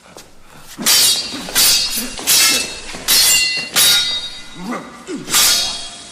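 Metal swords clashing: a string of six sharp, ringing blade-on-blade strikes, about one every 0.7 s from about a second in, with a longer gap before the last.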